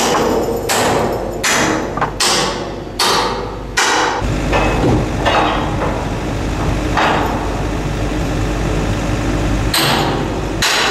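Hammer blows on the steel joint where a Ferris wheel spoke meets its galvanised mount: six hard strikes about three-quarters of a second apart, then a few lighter, scattered ones, over a steady low hum.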